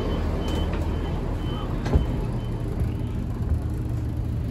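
Train door warning beeps: a short high-pitched beep repeating about twice a second, ending about three seconds in, over the train's steady low rumble, with a single knock about two seconds in.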